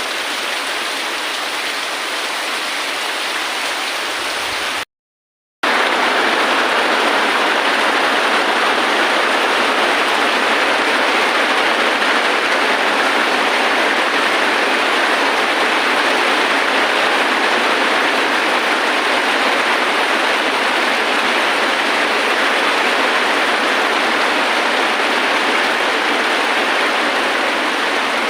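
Steady, dense rainfall hiss. It cuts out completely for under a second about five seconds in, then comes back slightly louder.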